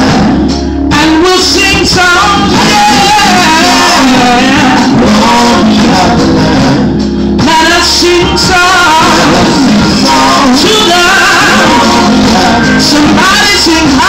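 Live gospel music: a woman sings lead into a microphone, loud through the PA, over a band with drums and backing voices.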